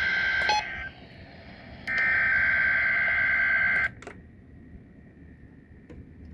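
NOAA Weather Radio SAME (EAS) header data bursts: the harsh two-tone digital warble that opens a Required Weekly Test. One burst cuts off about a second in, and a second burst runs for about two seconds from about two seconds in. After it only faint radio hiss remains.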